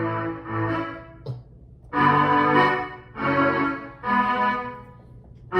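Electronic keyboard playing a phrase of held chords over a low bass line, each chord lasting about a second with short gaps between them.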